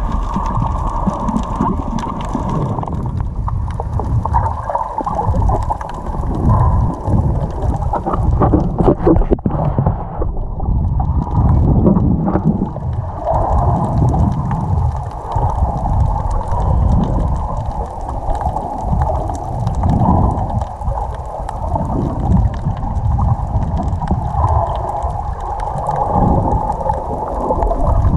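Muffled underwater rush of water against an action camera's waterproof housing as a free diver swims along the bottom, swelling and ebbing about every second and a half, with a few clicks about a third of the way in.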